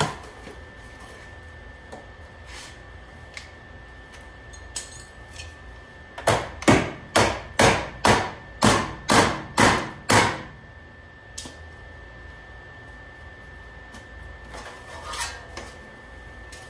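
A quick run of about nine sharp metal knocks, roughly two a second, on the sheet-steel front inner wheel panel of a 1971 VW Beetle, starting about six seconds in and stopping about four seconds later.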